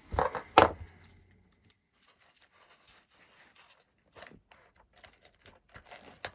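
Two short, sharp knocks right at the start, the second the loudest, then faint rustling and small clicks as fingers push servo wires down into a foam RC plane fuselage.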